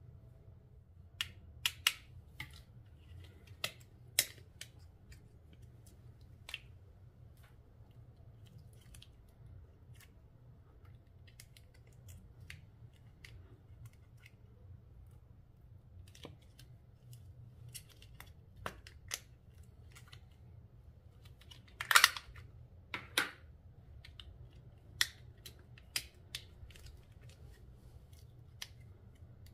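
Slime and its add-ins being handled in close-up: scattered, irregular sharp clicks and snaps, a few early on and the loudest pair about 22 seconds in, over a faint steady hum.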